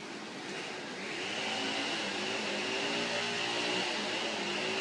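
A motor running with a steady low hum, joined about a second in by a steady high-pitched whine.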